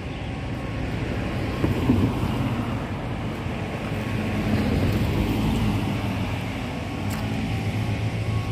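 Road traffic going by: a steady run of engine and tyre noise from a truck and cars, swelling a little around the middle.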